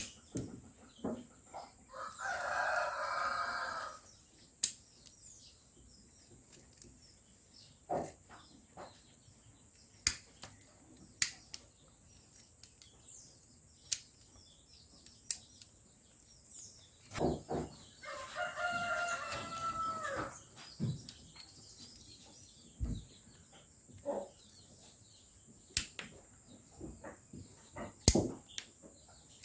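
A rooster crowing twice, each crow about two seconds long, the second about fifteen seconds after the first. Sharp clicks and knocks are scattered in between.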